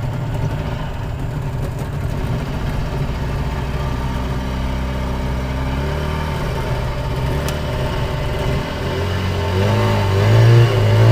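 An engine running steadily, shifting pitch partway through, then rising in pitch and getting louder near the end.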